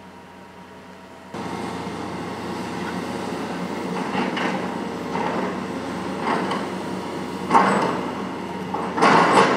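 Hitachi ZX470LCH-3 crawler excavator working, its engine running with a steady hum. The sound starts abruptly about a second in, and several louder, noisy surges follow, the loudest near the end.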